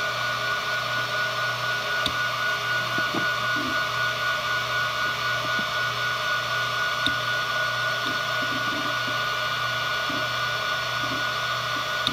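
Western Digital Expert 313600 7200 RPM 3.5-inch hard drive running under file copying and deleting. Its spinning platters give a steady hum and a high whine, and the heads seek with irregular soft clicks and ticks, with a couple of sharper clicks.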